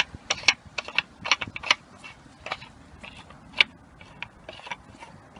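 Irregular sharp clicks and taps from hands working the oil filter housing cap into place under the car: a quick flurry in the first two seconds, then sparser clicks with one louder click past the middle.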